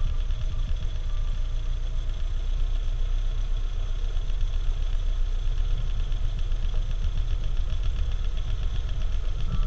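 Audi 80's 75 hp carbureted engine idling steadily on LPG through a newly fitted vacuum vaporizer, which has been adjusted by ear so the engine runs smoothly.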